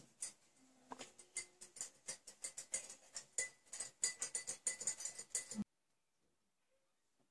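Irregular crackling and ticking from close soldering work on circuit-board header pins, cutting off abruptly about five and a half seconds in.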